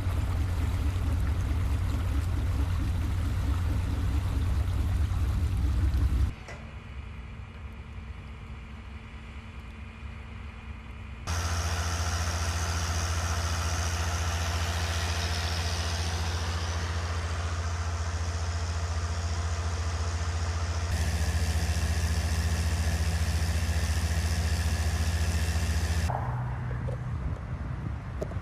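Outdoor storm ambience cut from several clips: a steady heavy low rumble with a rushing hiss over it, which drops away and returns abruptly at each cut.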